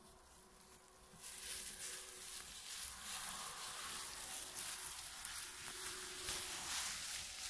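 Rustling and crackling of blueberry undergrowth as bodies push through it, starting about a second in and continuing.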